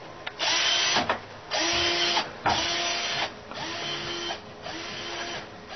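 Cordless power drill run in five short bursts of under a second each, about one a second, stopping between trigger pulls; the first two are the loudest.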